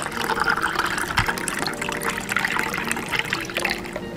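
A fizzy virgin mojito made with soda and Sprite is poured from a jug into a glass: a steady splashing pour with a crackling fizz.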